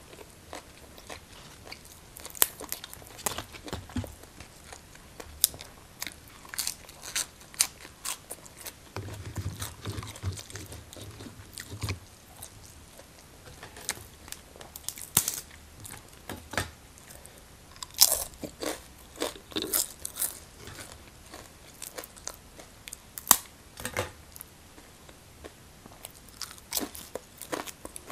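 A person chewing and biting crunchy food, with irregular sharp crunches and softer mouth sounds between them.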